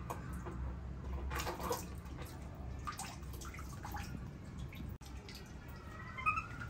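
Water splashing and dripping: a scatter of small splashes and drips over a low steady hum, with a short high squeak near the end.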